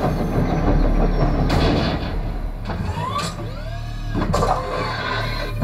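Action-movie sound effects played through a home-theater speaker system: a constant deep rumble broken by several heavy impacts, with swooping mechanical whirs in the middle, as a military helicopter turns into a robot on screen.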